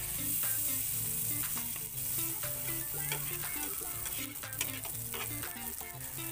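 Butter melting and sizzling in a hot nonstick frying pan around a frying egg-and-cabbage patty; the hiss starts suddenly as the butter goes in and then goes on steadily.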